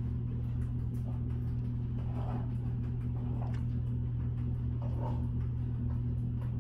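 A steady low hum at an even pitch, with a few faint soft knocks or rustles about two, three and a half, and five seconds in.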